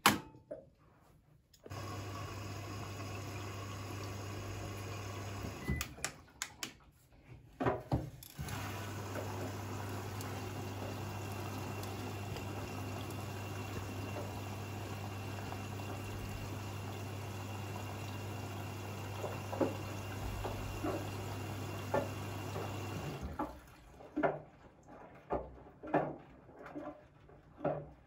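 Siemens front-loading washing machine starting its cycle: a sharp click, then the water inlet valve's steady hum and the rush of water filling the drum, broken off for a couple of seconds by a few clicks about six seconds in. Near the end the filling stops and the drum starts turning, with irregular sloshing and knocks.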